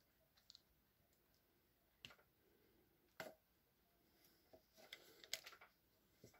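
Faint clicks of the SDS chuck being twisted and pulled off a DeWalt DCH273 hammer drill by hand. A few separate clicks come first, with a sharper one about three seconds in, then a quick run of clicks around five seconds in.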